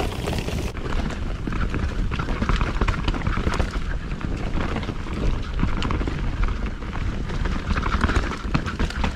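Mountain bike riding down a dirt trail: wind buffeting the microphone and tyres rumbling over the ground, with a steady run of knocks and clatters as the bike goes over bumps.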